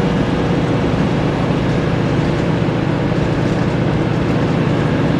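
A Scania DSC9 diesel engine of a Scania L94UB bus running steadily, heard from inside the passenger cabin.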